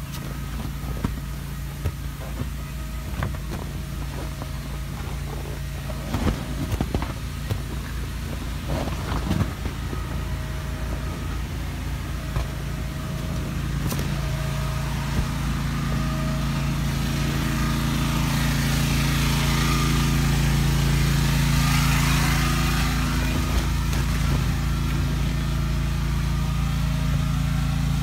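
Electric blower fan of an inflatable running steadily with a low hum, growing louder about halfway through. A few soft knocks in the first third.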